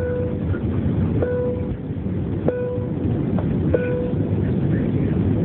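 Steady airliner cabin noise in flight, the low rush of engines and airflow, with four short beeps at even intervals about a second and a quarter apart.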